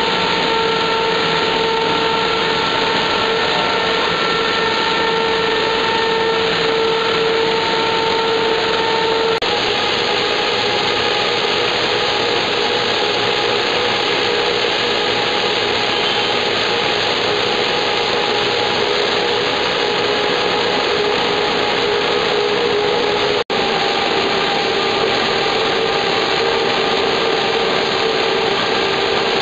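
A running corrugated cardboard production line (corrugator): dense, steady machine noise with a steady whine over it. The whine's pitch drops slightly about nine seconds in, and the sound cuts out for an instant near the end.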